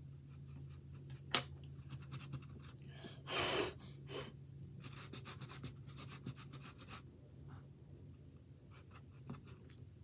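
Pencil strokes scratching on a canvas in short runs, with a sharp tap about a second in and a brief loud rush of noise midway, over a steady low hum.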